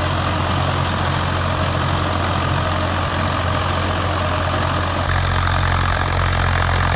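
Swaraj 855 tractor's three-cylinder diesel engine running steadily under load as it drives a super seeder through stubble in first low gear, holding its engine speed without strain. The sound becomes slightly fuller about five seconds in.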